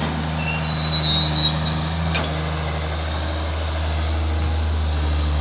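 Diesel engines of a hydraulic excavator and a Howo dump truck running steadily at a sand pile, with a single sharp knock about two seconds in.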